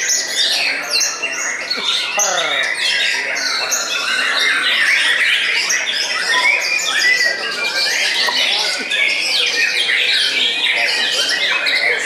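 White-rumped shamas singing at a songbird contest: a dense, unbroken chorus of loud, fast chirps, trills and whistles from several birds at once. A brief falling whistle comes about two seconds in.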